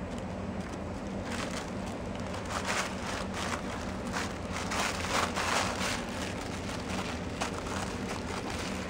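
Crumpled gold foil and tissue paper crinkling and crackling in irregular bursts as a four-week-old kitten walks and paws over it, loudest around the middle, over a steady low hum.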